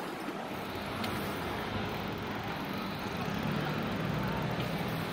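Steady rushing noise of bicycles rolling over a paved square, tyres on paving stones mixed with moving air. A faint low hum joins about halfway through.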